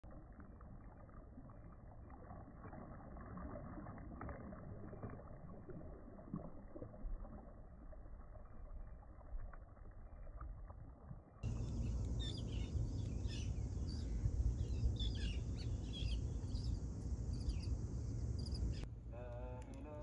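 Small sea waves washing and lapping onto a shore, muffled. About halfway through it cuts to louder, deeper surf noise with many short bird chirps above it, and near the end to a quieter sound with wavering pitched tones.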